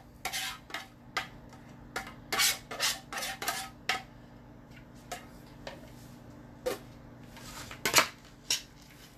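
A spoon clinking and scraping against bowls as vegetables are scooped from one container into a larger bowl and stirred. Rapid clatter for the first few seconds, then scattered taps, with one sharp knock near the end.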